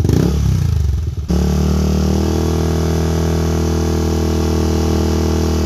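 Yamaha NMAX v2 scooter's single-cylinder engine through a JVT ver. 3 adjustable aftermarket exhaust on its bassier setting: idling, then about a second in the throttle is opened suddenly and the revs are held high and steady for about four seconds before dropping back to idle near the end. The rev reads about 98 decibels on a decibel meter.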